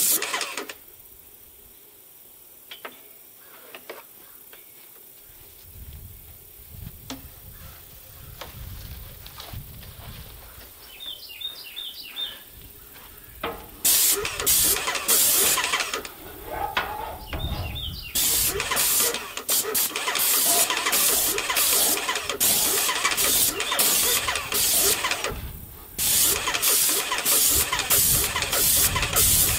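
Cheap airless paint sprayer in use: after a quieter stretch with a low rumble, loud hissing sound starts about halfway through and comes in rapid on-off pulses, with one short break near the end.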